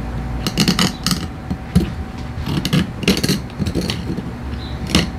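Scattered clicks, taps and light clatter of small carburetor parts being handled and set down on a workbench, over a low steady hum.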